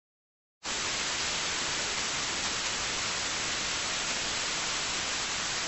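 Television static: a steady, even hiss of white noise that starts abruptly about half a second in, after dead silence.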